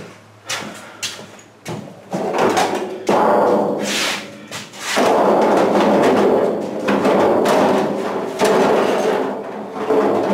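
A few sharp knocks, then a loud, sustained scraping rattle of a thin sheet-metal panel rubbing against a school bus's metal window frame as it is forced into the opening. The rattle starts abruptly about two seconds in and carries on for most of the time.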